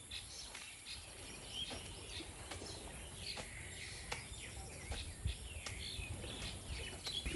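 Faint outdoor ambience: scattered short bird chirps and calls over a low background rumble, with a few soft clicks.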